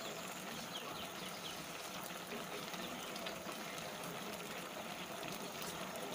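A pot of taro-leaf curry simmering on the stove, giving a steady, soft bubbling hiss.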